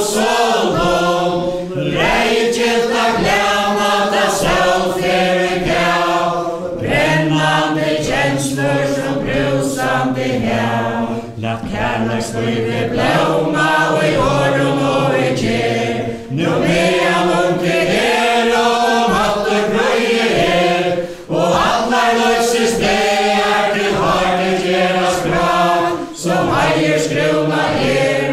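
A group of men and women singing a strophic song in Faroese in unison, unaccompanied, with short breaks between sung lines about every five seconds.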